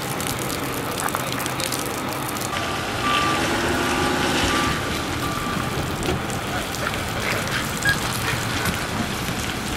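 Steady rain hiss throughout. About three seconds in, a utility bucket truck drives past; its engine swells for a couple of seconds while a beeper gives a run of short, evenly spaced beeps.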